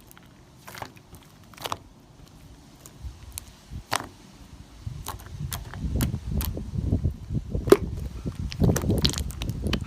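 Hands working slime: scattered sharp clicks and pops at first, then denser squishing and crackling from about halfway, getting louder near the end.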